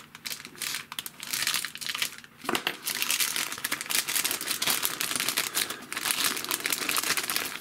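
Clear polythene bag crinkling and rustling as a plastic model-kit sprue is pulled out of it. The crackling gets louder and busier from a little under three seconds in.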